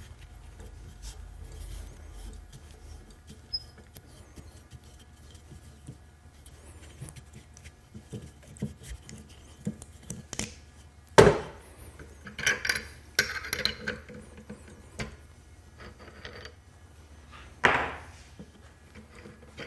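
Knocks and metal clinks as a wooden bowl is unscrewed from a mini lathe's screw chuck and a four-jaw scroll chuck is fitted to the spindle. A sharp knock about eleven seconds in is the loudest sound, with a quick run of clinks after it and another knock near the end.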